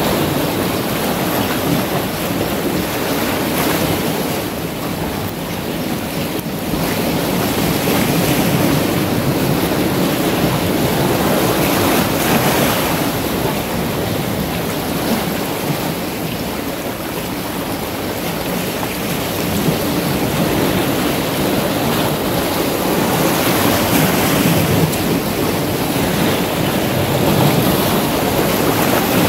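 Sea waves washing in and breaking against large shore boulders, the surf rising and falling in swells a few seconds apart.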